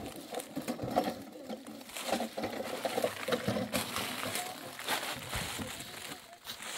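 Footsteps crunching and scraping on loose stones and gravel, with irregular clicks of small rocks shifting underfoot.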